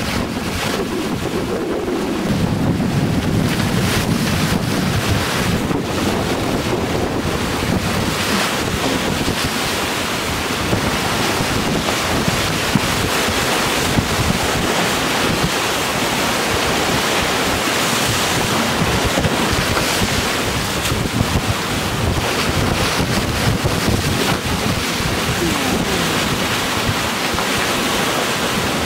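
Strong wind buffeting the microphone over the steady rush of rough, breaking sea around a sailing trimaran under way.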